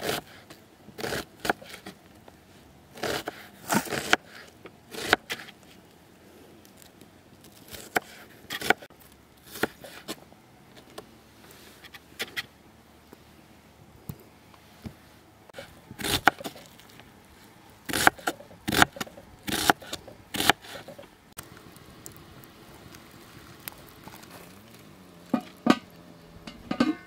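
Irregular scraping and clicking of things being handled, in clusters of sharp sounds with quiet pauses between.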